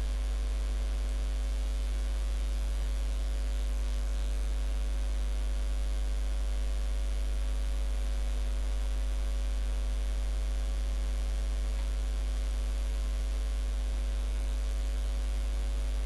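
Steady electrical mains hum, strongest at the very low end with a faint buzz of higher overtones, unchanging throughout.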